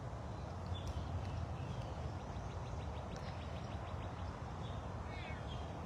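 Quiet outdoor ambience with a steady low rumble, a faint rapid ticking trill in the middle, and a faint wavering animal call near the end, likely a serval.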